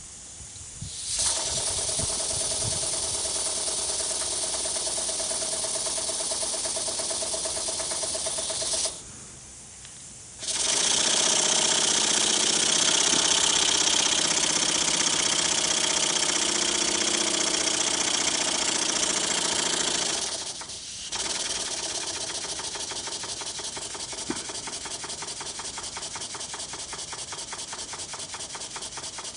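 Model twin-cylinder double-acting oscillating engine running on compressed air: a fast, even hissing chuff of exhaust air. It cuts out about nine seconds in, starts again a second or so later and runs louder, dips briefly around twenty seconds in, then runs on a little quieter until it stops near the end, its running set by hand at the reversing and throttle valve.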